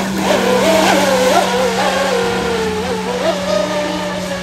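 Fast electric RC catamaran racing boat running flat out: the whine of its electric motor and propeller, wobbling in pitch as the hull skips over the water, then steadying and dropping slightly, over a hiss of spray.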